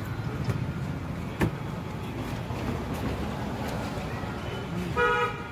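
Steady background noise of road traffic, with a single sharp click about a second and a half in. Near the end a vehicle horn gives one brief, loud toot.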